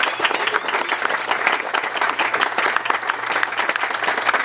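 A crowd applauding, many hands clapping steadily without letting up.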